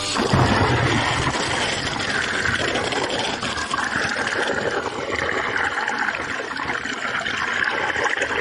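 A wave pushed up by a passing ship breaks over a camera at the water's edge: a heavy rush of water over the microphone, loudest in the first second, then water streaming and trickling off.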